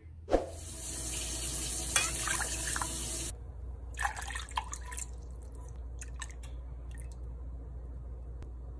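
Liquid pouring and splashing from a stainless measuring cup into an enamel saucepan for about three seconds, after a sharp clink at the start; then a few small drips and clinks over a low steady hum.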